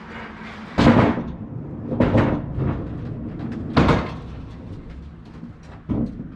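A series of heavy knocks and clunks: four loud ones about a second or two apart, with lighter rattling and clicks in between, like a large toolbox or heavy equipment being shifted and bumped.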